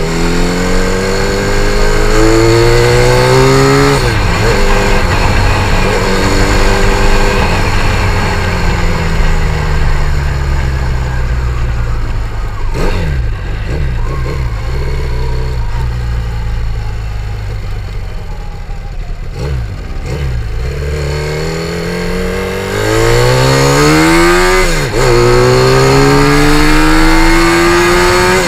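Twin-engined Cub-style step-through motorcycle under way. The revs climb, drop at a gear change about four seconds in, then fall away slowly with a couple of short dips as the bike slows. Near the end it revs up hard again through a gear change.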